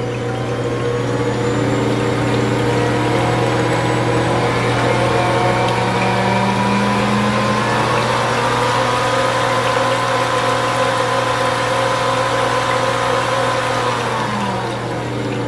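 Ankarsrum Assistent stand mixer motor running at high speed, mixing butter, eggs and liquid in its steel bowl. A steady motor whine whose pitch rises near the start as the speed is turned up and falls near the end as it is turned back down. The speed is described as super fast.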